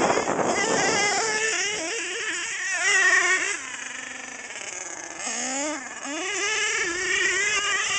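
HPI Savage XL's K5.9 big-block nitro engine revving up and down as the truck is driven, its pitch rising and falling with the throttle. Around the middle it drops to a quieter, lower, steady note for a second or so, then revs up again.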